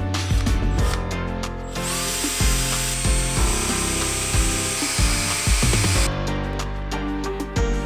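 Background music throughout, with a power drill running steadily for about four seconds in the middle, a high whirring whine, winding braided fishing line.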